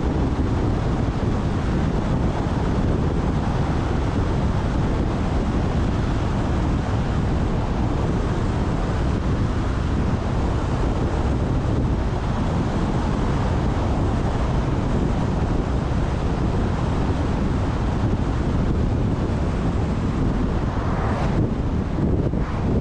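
Steady wind buffeting the microphone together with road and tyre noise from a moving car. Near the end an oncoming car passes with a brief rising swoosh.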